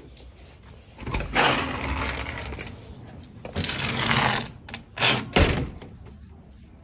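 Rustling and scraping noise in two long stretches, then a few sharp knocks about five seconds in, from someone walking out through a door with the phone in hand.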